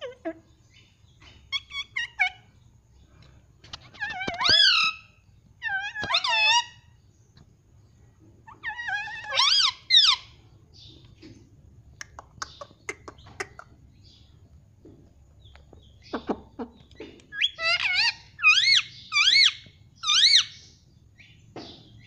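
Indian ringneck parrot chattering to its reflection in a mirror: several short bouts of wavering, warbling calls, with sharp clicks and taps between them as its beak pecks at the mirror.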